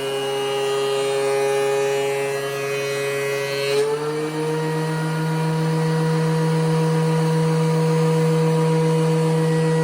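DeWalt DW735 thickness planer running, its cutterhead taking a pass along a wooden cutting board with a steady whine and a hiss of cutting. About four seconds in the cut ends with a brief knock, and the motor's pitch steps up a little as it runs on free of the wood.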